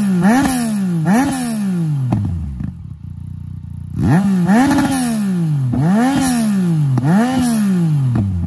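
Yamaha MT-09's three-cylinder engine revved in quick throttle blips through a freshly fitted Akrapovic titanium full exhaust system, each rev rising and falling back. The engine drops back briefly about three seconds in, then four more blips follow.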